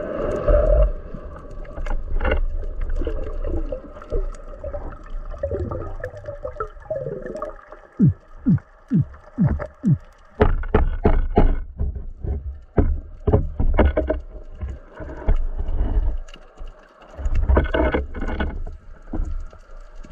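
Underwater sound of a spearfishing dive, heard through a camera with the speargun: an uneven rush and rumble of water with many knocks and clicks, and a quick run of about five falling chirps about eight seconds in.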